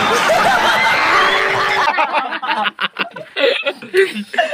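A studio audience laughing and clapping for about two seconds, cut off suddenly, then a few men laughing in short bursts.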